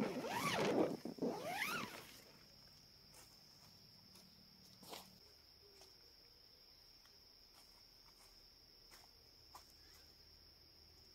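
Animal calls with sweeping, rising-and-falling pitch for about the first two seconds. Then a steady high-pitched insect drone carries on, broken by a few faint clicks.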